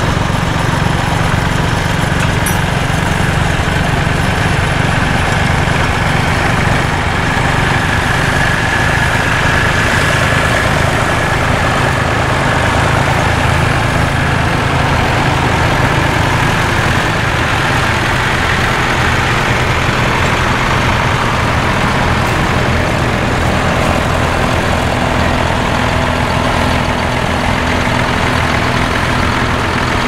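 Vintage tractor engine running steadily while pulling a plough through stubble.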